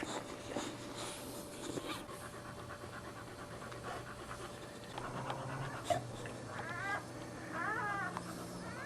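Boxer bitch panting rapidly while whelping. A few short, high squeaks come in over the last few seconds.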